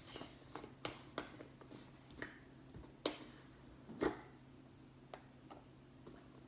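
Spoon scooping corn starch, tapping and clicking lightly against its container several times, with two louder knocks about three and four seconds in.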